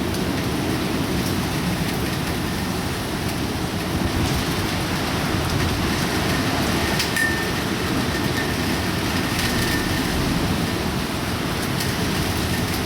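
Typhoon wind and heavy rain: a steady, loud rushing noise with scattered faint ticks, as of rain striking surfaces.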